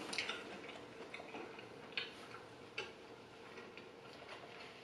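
Quiet eating sounds: a few scattered small clicks and taps of a fork in a plastic bowl of greens, strongest about two seconds in and again a little before three, over a faint steady hum.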